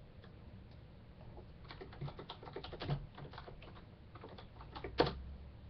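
Computer keyboard typing: quick, irregular key clicks starting about a second and a half in, with one louder click about five seconds in.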